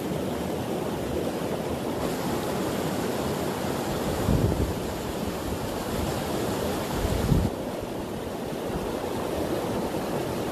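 Steady rushing noise of running stream water, with two short low bumps of wind buffeting the microphone about four and seven seconds in.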